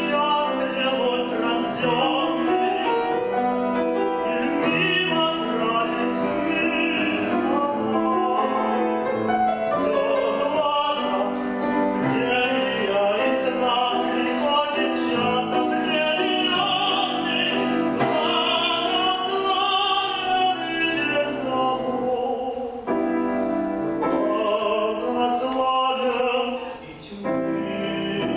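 Tenor singing a classical art song or aria in full operatic voice with vibrato, accompanied by piano. The voice stops briefly near the end while the piano carries on.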